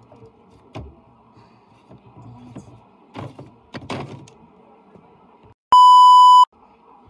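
Plastic figurines knocking against a tabletop a few times as they are handled and fall. Then a loud, steady, high-pitched test-tone beep with colour bars, lasting under a second and cut off suddenly.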